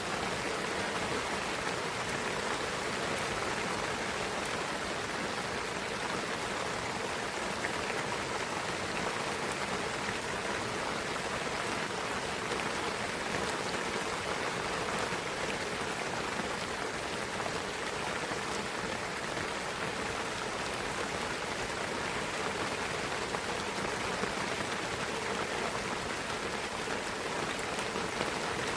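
Steady rain falling in a pine forest, a dense even patter of drops on the trees and ground.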